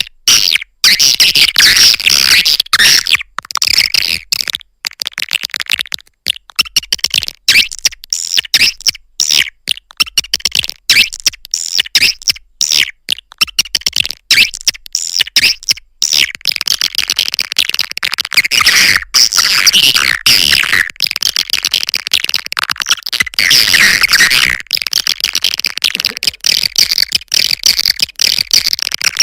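Swiftlet calling recording of the kind played to lure swiftlets into a nesting house: many swiftlets chirping and twittering fast and high, broken by frequent short gaps.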